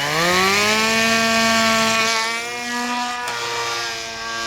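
RC model plane's motor and propeller throttling up for takeoff: a whine that climbs in pitch over about a second, then holds at full power and eases down slightly near the end.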